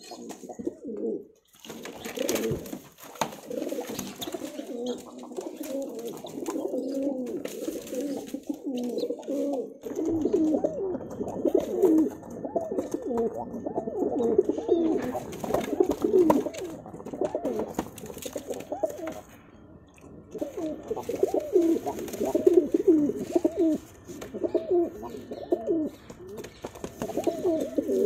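Domestic pigeons cooing, low warbling coos following one another almost without a break, with short pauses about a second and a half in and around twenty seconds in.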